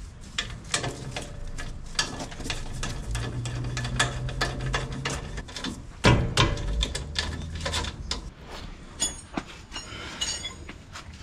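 Metal clicks and knocks of a wrench tightening the three top-mount nuts of a new front coilover strut on a Toyota Land Cruiser Prado 120, with a heavier knock about six seconds in.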